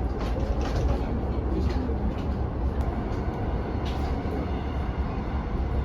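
Steady low rumble of a vehicle in motion, with a few faint clicks and rattles over it.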